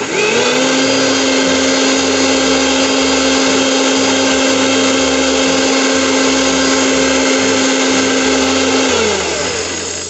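Electric mixer grinder's motor starts suddenly and spins up within half a second, running steadily for about nine seconds as it blends yogurt, water and gram flour into a smooth batter in its steel jar. Near the end it winds down, its pitch falling.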